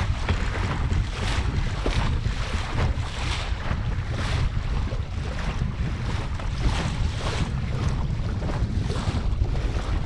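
Water rushing and splashing along the hull of a Laser Pico sailing dinghy under way in choppy water, surging about once a second as waves pass. A heavy wind rumble on the microphone runs underneath.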